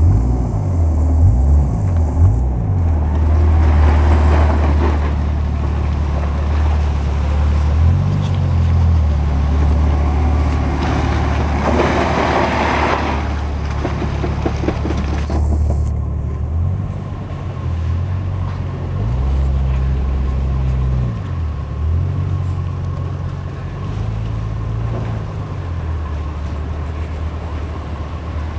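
Jeep Grand Cherokee WJ engine running under load on an off-road climb, the revs rising and falling again and again. Two stretches of louder rushing noise come in over it, about four seconds in and near the middle.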